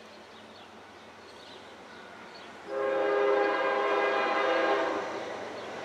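Locomotive air horn on an approaching train sounding one long blast of a bit over two seconds, several tones at once, starting about halfway in.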